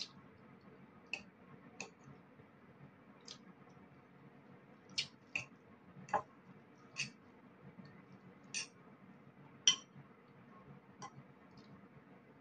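A metal fork clinking and scraping against a ceramic bowl of noodles during eating: about a dozen sharp, irregular clicks over a faint steady room hum, the loudest about ten seconds in.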